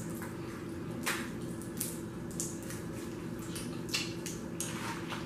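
Boiled crawfish being peeled by hand: a handful of short, wet cracks and squishes as the shells snap apart, spaced a second or so apart, over a low steady hum.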